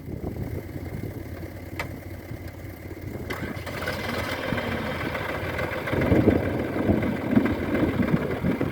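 Diesel engine of heavy machinery running, with two short clicks early on; the engine grows louder and busier from about three seconds in.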